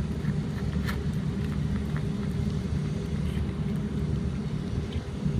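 Steady low engine-like rumble with a constant hum, as of a motor idling, with a sharp click about a second in and a few fainter clicks after it.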